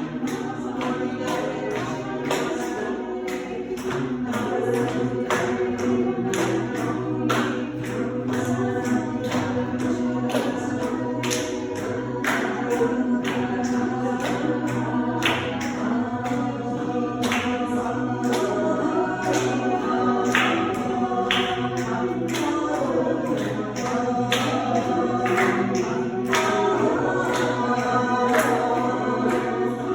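A choir singing unaccompanied, many voices together in a sustained a cappella piece.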